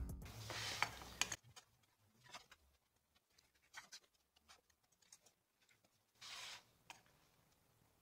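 Background music fading out over the first second or so, then faint handling sounds at a workbench: scattered light clicks and taps of a metal combination square and wooden boards, and a short scratch of a pencil drawing a line on the wood about six seconds in.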